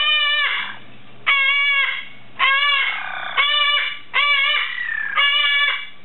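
Yellow-naped Amazon parrot calling loudly and repetitively: six short, flat, squawking calls of about half a second each, coming roughly once a second.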